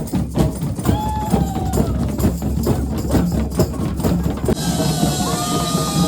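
Music with a drum-kit beat and a held, gliding melody line over it; a bright high wash comes in about four and a half seconds in.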